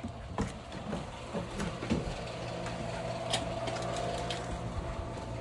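A steady low machine hum with scattered light clicks, and a faint held whine in the middle.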